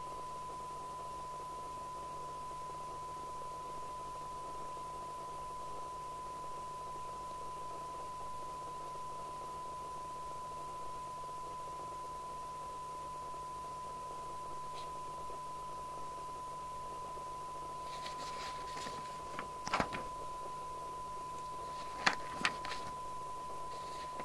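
A steady high-pitched electronic tone over faint hum and hiss, unchanging throughout. A few sharp clicks and knocks come near the end.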